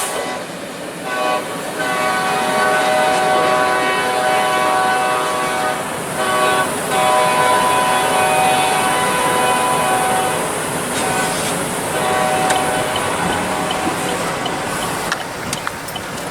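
Diesel freight locomotive's multi-chime air horn sounding several blasts, two of them long, over the rumble and clicking of the passing train.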